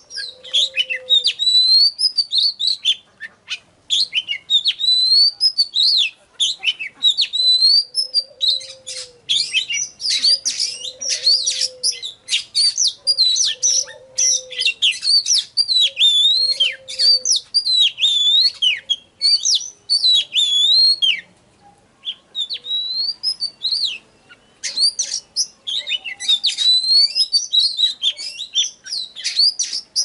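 Oriental magpie-robin singing a loud, varied song of rapid whistled phrases and chattering notes. It breaks off for about three seconds past the middle, then resumes.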